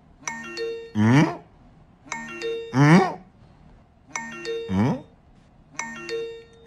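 A short falling chime melody, like a ding-dong doorbell, repeats four times about two seconds apart. Each chime is followed by a brief cry that rises sharply in pitch.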